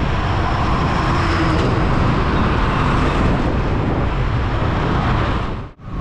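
Riding noise on a Yamaha R15 V3 motorcycle: wind rushing over the rider's microphone, with the bike's engine and road noise under it. The noise drops out sharply for a moment near the end.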